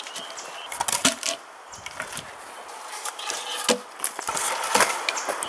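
Cut logs knocking and scraping against each other and against upright wooden stakes as they are stacked into a log fire reflector wall: a string of sharp wooden knocks, the loudest about a second in and near the end.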